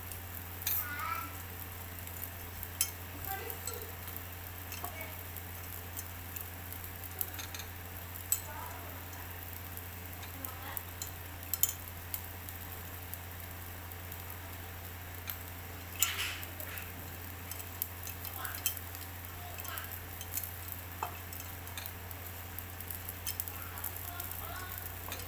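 Beef satay skewers sizzling over a charcoal grill, with scattered small crackles and pops throughout over a steady low hum.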